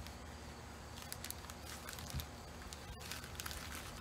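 Contact paper and its printed paper being peeled off a cut MDF sign, with irregular crinkling and crackling as the sheet tears away.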